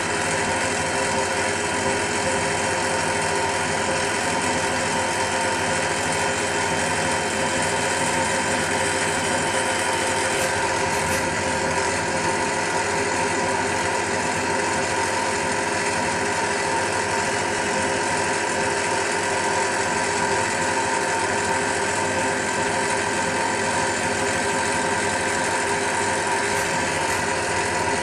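Macpower Turn O' Mill 200 CNC turn-mill machine milling a metal workpiece held in the lathe chuck with an end mill in a Heimatec driven tool holder. It makes a steady machining drone with several even tones running through it and does not let up.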